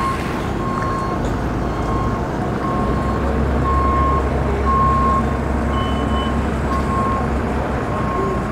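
A vehicle's backup alarm beeping steadily at an even pace, over a low engine rumble that grows stronger in the middle.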